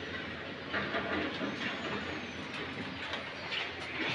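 Road traffic noise from the buses and trucks on the highway below: a steady haze of engines and tyres with a few short louder rushes.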